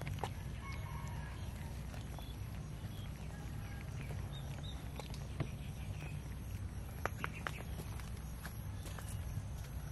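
Cats eating rice and fish off the ground: scattered small clicks and smacks of chewing over a steady low rumble, with a quick run of clicks about seven seconds in.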